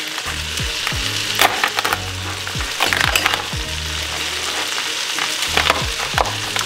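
Onion, carrot and celery sizzling steadily in butter in a pot on high heat, with a chef's knife crunching through a lobster tail shell and knocking on the cutting board a few times, loudest about a second and a half and three seconds in.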